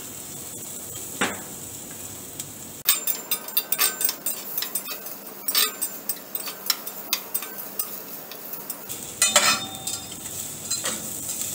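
Chopped onion and garlic sautéing in oil in a stainless steel saucepan, with a steady sizzle. From about three seconds in, a metal slotted spatula stirs and scrapes against the pan in quick, irregular clinks.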